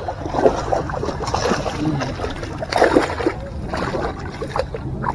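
A hooked fish thrashing and splashing at the water's surface by the bank as it is brought in, in irregular splashes, the loudest about three seconds in.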